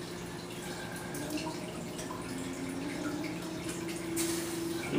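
Water dripping and splashing in a pot of ice water as hands lift jalapeños out of it, with a steady low hum underneath. A brief louder splash comes about four seconds in.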